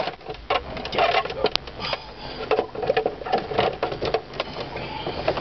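Plastic glove-box assembly in a car dashboard being pulled forward and worked loose: quick, irregular clicking and rattling of plastic parts knocking against each other.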